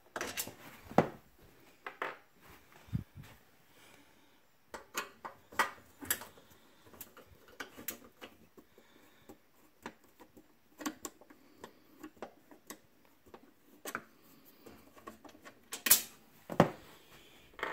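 Screwdriver backing out the screws of a Square D breaker panel's steel faceplate: irregular metallic clicks and scrapes, with a few sharper clicks about a second in and near the end.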